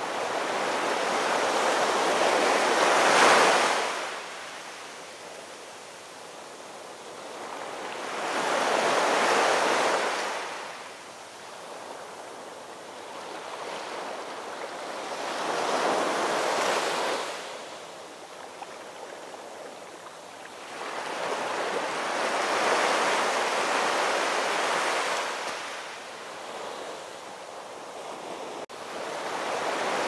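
Heavy storm surf crashing and washing back in big swells about every six or seven seconds, the loudest crash about three seconds in.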